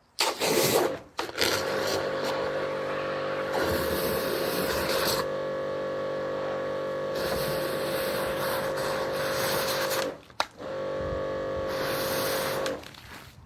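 Electric pressure washer running with the hiss of its spray, its motor giving a steady hum. It cuts out for half a second about ten seconds in, starts again, then stops near the end.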